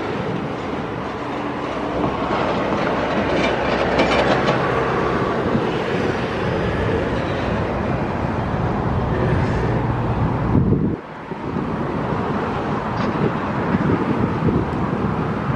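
Canadian Pacific double-stack intermodal freight train rolling past: a steady rumble with the clatter of well-car wheels on the rails, and a short lull about eleven seconds in.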